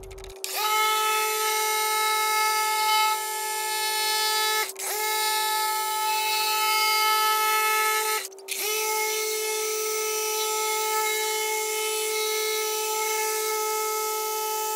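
Milwaukee 15mm random orbital polisher running with a cutting pad and compound, buffing oxidation out of dull truck paint. It gives a steady, high motor whine that dips and spins back up twice, about a third and about halfway through.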